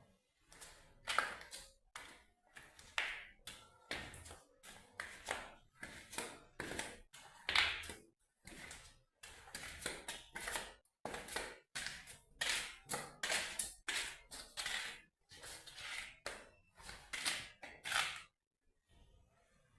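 Irregular series of sharp taps and knocks, about one or two strikes a second, with short breaks between runs.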